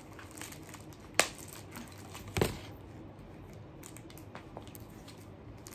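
Quiet handling of a plush dog toy with crinkle paper inside: faint rustling and two sharp taps, about a second and two and a half seconds in.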